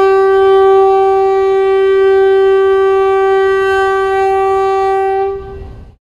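One long, steady horn note at a single pitch, held for about five seconds and fading out near the end, played as a channel intro sound.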